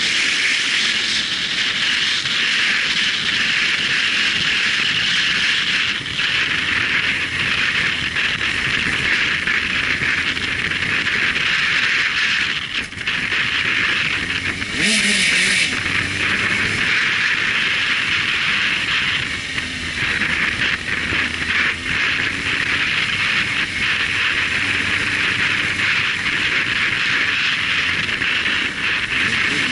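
Motorcycle riding slowly through traffic: a steady rush of engine and road noise, with the engine note rising and falling briefly about halfway through and again near the end.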